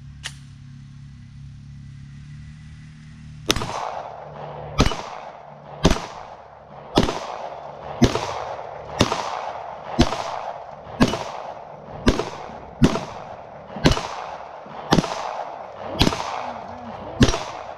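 A Taurus G3 9mm pistol fired in a steady string, fourteen shots at about one a second starting a few seconds in, each shot trailing a short echo. A single small click comes just before the shooting.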